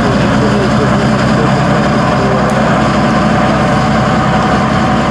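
Tatra 813 8x8 truck's diesel engine running steadily under load as the truck crawls over rough sandy ground, a deep, even drone.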